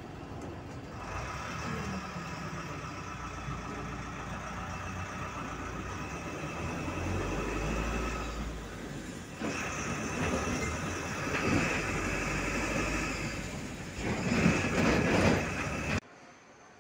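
City bus in motion heard from inside the cabin: engine and road noise with a steady whine, louder in the last couple of seconds. It cuts off sharply near the end.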